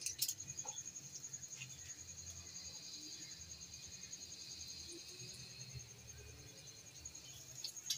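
Slices of egg-soaked bread frying faintly in a little oil in a pan over medium-low heat, with a steady high, fast-pulsing trill throughout and a few faint clicks.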